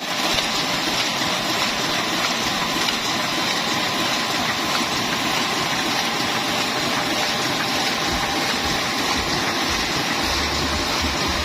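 Sakurai Oliver 58 four-colour offset printing press running steadily: a constant dense mechanical noise with a faint steady whine, and a low hum coming and going over the last few seconds.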